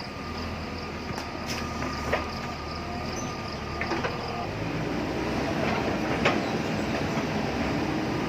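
JCB backhoe loader's diesel engine running under load, with several sharp knocks of the bucket and stones, the loudest about six seconds in. It gets louder in the second half.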